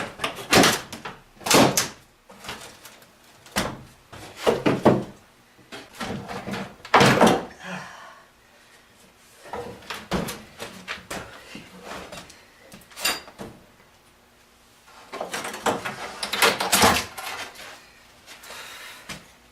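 Irregular wooden knocks, bangs and scraping as the panels of an antique beadboard corner cabinet are worked loose and handled while it is taken apart, with a quieter stretch before a last cluster of knocks.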